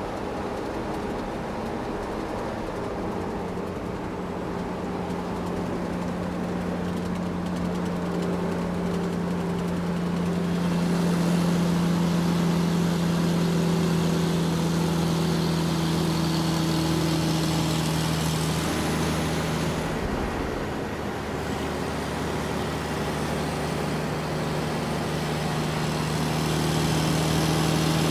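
Large truck's engine running steadily as it drives, growing louder about ten seconds in; the engine note dips and breaks briefly around twenty seconds in, then holds steady again.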